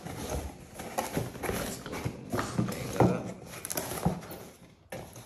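Irregular knocks and clicks from handling the packaging and parts while unboxing an airgun, about a dozen, with the loudest about three seconds in.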